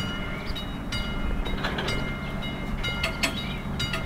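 Level-crossing warning bell of an AŽD 71 crossing signal, a classic bell ringing steadily to warn of an approaching train, with scattered sharp clicks and a low steady hum underneath.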